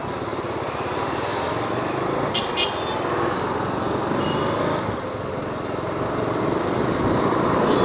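A Bajaj Dominar 400's single-cylinder engine running while riding in city traffic, under a steady rush of wind and road noise. A brief high double note sounds about two and a half seconds in.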